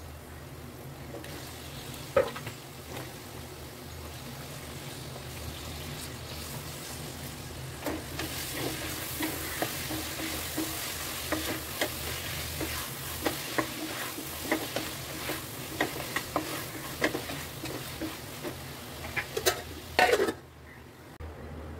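Onion-tomato masala sizzling in an aluminium pressure cooker; about eight seconds in, the sizzle grows louder as vegetables are stirred in with a spatula, which clicks and scrapes against the pot many times. Near the end there is a loud clank, then the sizzle suddenly drops as the pressure-cooker lid goes on.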